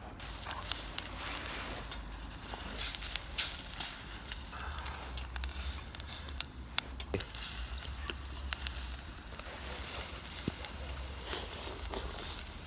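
Wood campfire crackling, with scattered sharp pops at irregular times over a low steady hum.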